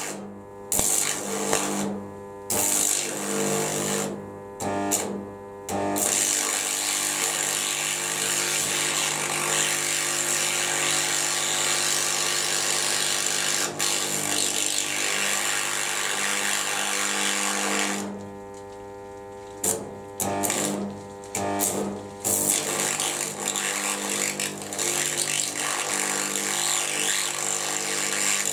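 Carbon arc brazing with an arc welder: a steady hiss from the carbon arc over a low hum. The arc breaks off and restarts several times in the first six seconds and again about eighteen to twenty-two seconds in.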